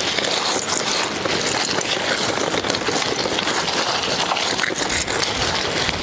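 Loose beach stones crunching and clattering under the tyres and shoes as a fully loaded touring bike is pushed over them, a steady run of many small knocks.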